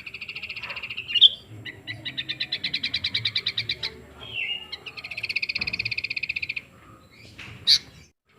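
A small songbird singing: three long, rapid high trills of about two seconds each, with short sharp chirps between them.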